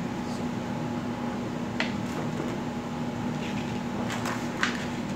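Steady background hum throughout, with a few soft taps and rustles as the TV's plastic reflector sheet is handled and laid back over the LED backlight strips, about two seconds in and again near the end.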